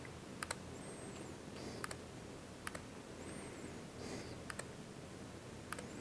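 Clicking on a laptop during a live software demo: five short clusters of sharp clicks, mostly in quick pairs, about one every second or so, over faint room tone.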